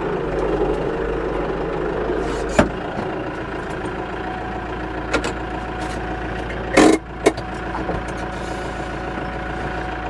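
Compact farm tractor engine running steadily while the tractor drives with a round hay bale on its front loader, with a few sharp knocks and a louder clatter about seven seconds in.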